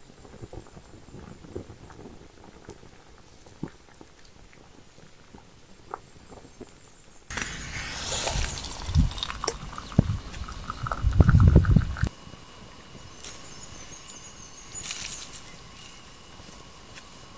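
A wood fire crackling softly in a Swedish torch stump under a small tea pot, with scattered small pops. About seven seconds in, hot tea starts being poured from the small pot into an enamel mug, a louder splashing stream that is heaviest just before it stops, about twelve seconds in.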